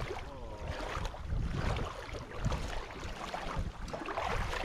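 Wind rumbling and buffeting on the camera's microphone as it is carried along the shore, with irregular low thumps of handling, and a faint distant voice near the start.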